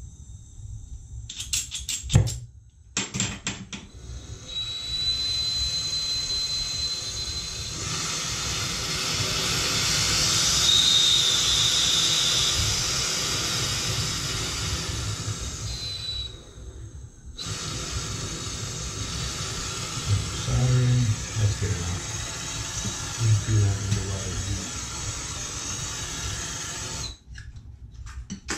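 Soldering torch with a small number three tip lit with a flint striker: two clicks of the striker, then the flame burns with a steady hiss and a faint high whistle. The hiss breaks off for an instant about two-thirds through, resumes, and stops near the end as the torch is shut off; a few dull knocks come partway through.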